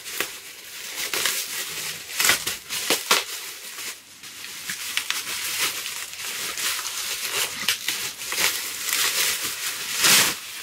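Plastic packaging crinkling and rustling in irregular handfuls as a framed print is unwrapped, with louder bursts of crackling about two to three seconds in and again near the end.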